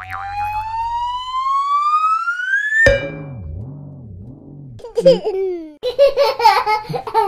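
Edited-in cartoon sound effects: a rising whistle glide lasting about three seconds, then a wobbling, drum-like effect, then a baby giggling in short bursts from about five seconds in.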